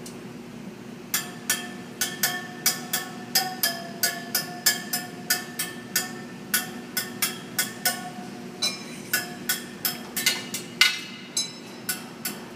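The steel spokes of a laced motorcycle wheel being tapped one after another, about two strikes a second, each spoke giving a short metallic ping that shifts a little in pitch from spoke to spoke. This is a spoke ring test, checking for a loose or damaged spoke.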